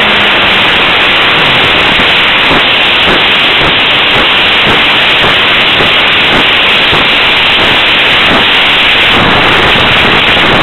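Loud, steady rush of airflow on the RC plane's onboard camera microphone as the plane glides low over grass with its engine throttled back.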